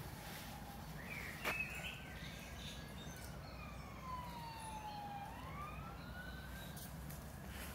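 A distant siren wailing: one slow tone that falls and then rises again over several seconds, above a steady low rumble. A brief sharp click about a second and a half in is the loudest moment.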